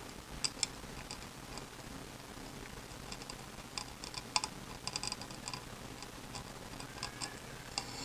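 Light, irregular clicking and scratching as a tiny strip of sandpaper works the edges of a thin polystyrene piece clamped in a vise, with a cluster of clicks around the middle.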